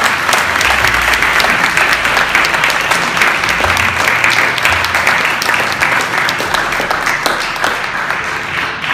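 A small audience applauding: steady, dense hand clapping that eases slightly near the end.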